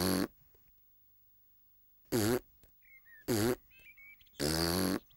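A cartoon piglet hiccuping: four short, loud voiced 'hic' sounds, the first at the very start and three more spread over the last three seconds, with faint bird chirps between them.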